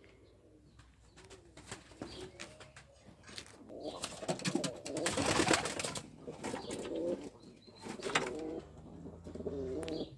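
Domestic pigeons of the Turkish Ödemiş dolap breed cooing repeatedly in a wooden loft. A loud rustling burst comes about halfway through.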